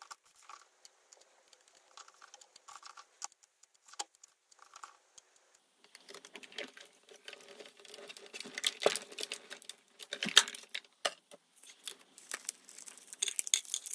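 Crafting handling sounds at a die-cutting machine: a clear plastic cutting plate and a strip of varnished cardstock being lifted and peeled off metal cutting dies, with crinkling paper and small clicks. Faint and sparse at first, busier from about six seconds in.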